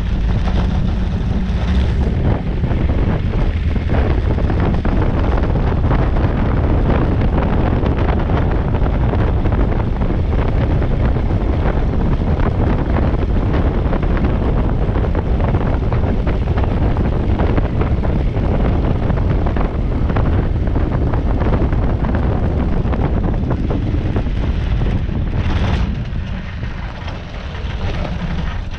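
Light aircraft (Rans Coyote ultralight) engine and propeller running as it taxis, with wind buffeting the microphone. The sound eases off somewhat about 26 seconds in as the power comes back.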